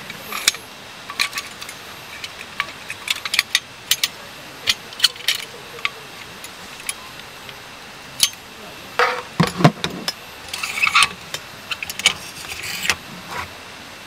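Camping gear handled during a screen tarp setup: a string of light clicks and clinks, with a louder knock about nine and a half seconds in and a couple of brief rustling bursts after it.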